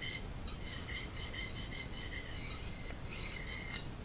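Quick back-and-forth scraping on a wet pocket sharpening stone (a Fällkniven DC4), a gritty rasp with short breaks between runs of strokes.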